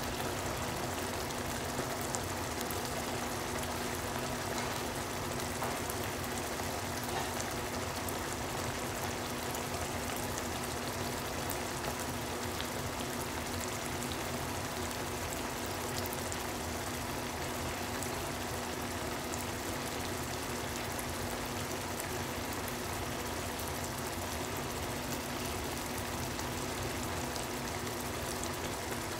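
Picadillo sauce simmering in a pot, bubbling and popping with many small steady pops as the liquid cooks down, over a steady low hum.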